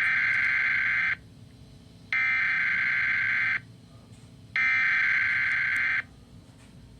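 Emergency Alert System SAME header: three harsh, buzzy digital data bursts of about a second and a half each, a second apart. They mark the start of a broadcast child abduction alert.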